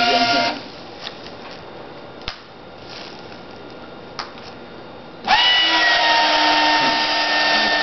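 Hover-bot's small electric fans running with a loud whine, switched off about half a second in. After a quiet stretch with a couple of light clicks, the fans start up again about five seconds in, their whine quickly settling to a steady pitch.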